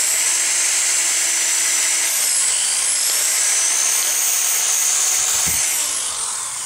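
Corded electric drill spinning a wire wheel against a cast-iron brake caliper, scouring off rust and grime loosened by a vinegar soak: a steady high whine over scratchy brushing, its pitch dipping briefly about two seconds in. About six seconds in the drill comes off the part and its whine falls away as it winds down.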